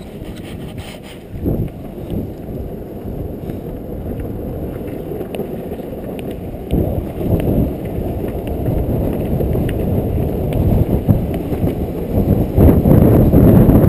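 Longboard wheels rolling over rough asphalt with wind buffeting the microphone, a low rumble that grows steadily louder as the board picks up speed downhill, with a few light clicks from cracks in the road.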